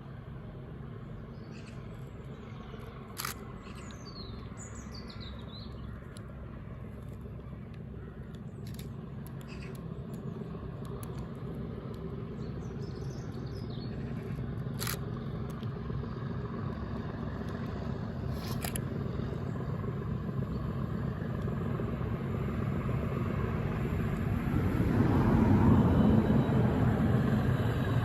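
Class 37 diesel locomotives' English Electric V12 engines working hard up a gradient, a low pulsing rumble that grows steadily louder as they approach, loudest near the end. Birds chirp in the first few seconds and again about halfway through, with a few sharp clicks.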